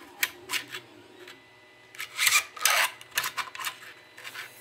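3D-printed plastic blade segments scraping and clicking against the printed guard as the folding blade is pushed through it into the handle: a few light clicks, then several short rasping scrapes near the middle.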